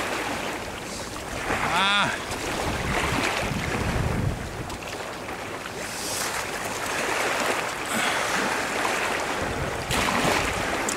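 Steady rushing noise of waves washing on a shingle shore and wind on the microphone. About two seconds in comes a brief wavering vocal sound.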